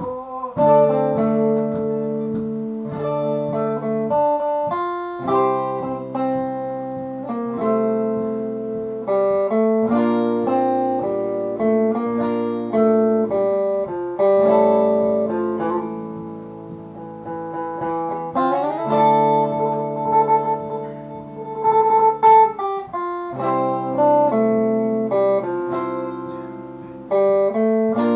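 Guitar playing a slow chord progression, each chord plucked and left to ring before changing every second or two, with a brighter strum about two-thirds of the way through.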